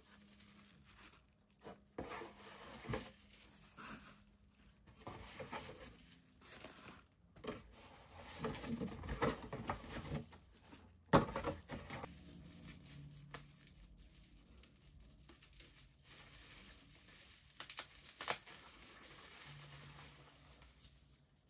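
Bubble wrap and packing tape being torn and crumpled by hand, in irregular rustles and rips. A sharp knock about eleven seconds in is the loudest sound, with a lighter one near the end.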